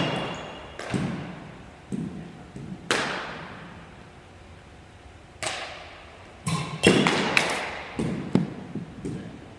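Batting-cage practice: a pitching machine firing baseballs and a bat striking them, with a brief ringing tone at the loudest hits. There are two clusters of sharp knocks, one at the start and one about seven seconds in, and single knocks between, all echoing in the gym.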